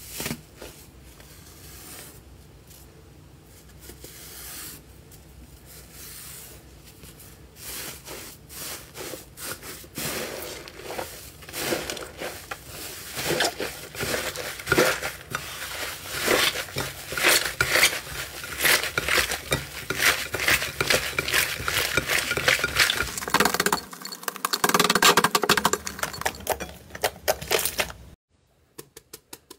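Hands kneading, squeezing and pulling apart a thick textured slime, making dense crackling and popping. It is soft at first, grows busier and louder, and stops abruptly about a second before the end.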